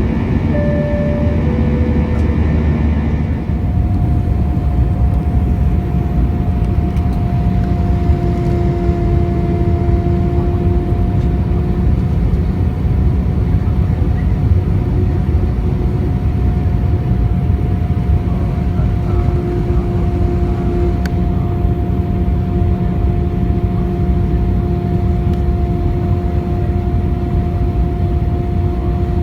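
Airbus A321 cabin in flight: a steady roar of jet engines and airflow. About 3.5 s in, a steady tonal hum sets in above the roar, and a second, lower hum joins a few seconds later and holds.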